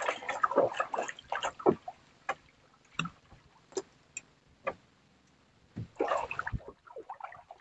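Seawater sloshing and splashing against the hull of a small outrigger boat, with scattered light clicks and drips in between; a second burst of splashing comes about six seconds in.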